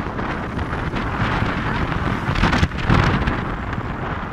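Wind buffeting the microphone in the open bed of a moving pickup truck, over the steady rumble of the truck on the road. A gust surges, drops away briefly and surges again about two and a half to three seconds in.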